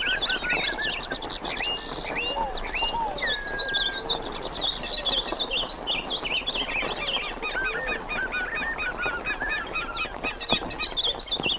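Dense chorus of wild animals calling at once: many short, overlapping chirps and whistles, with one longer, slightly falling whistle a few seconds in.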